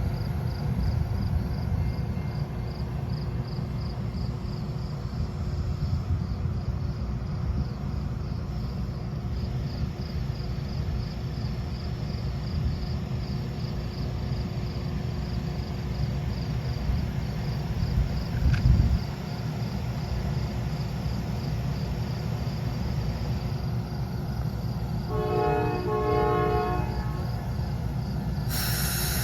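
Amtrak passenger train standing at a station with a steady low diesel rumble, while crickets chirp in an even pulse. About 25 seconds in the locomotive horn sounds a couple of short blasts, and a hiss starts near the end.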